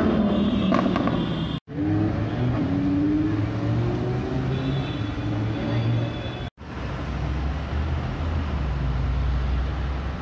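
Car engines in three short cut-together clips. First a red second-generation Audi R8 accelerating away, then an engine rising in pitch as a car pulls off, then a low steady rumble as a Mercedes G-Class rolls past, with two abrupt cuts between them.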